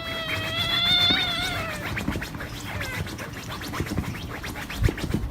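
An animal's long drawn-out call, one pitched wail that rises slightly and then trails off about two seconds in, followed by scattered light clicks and taps.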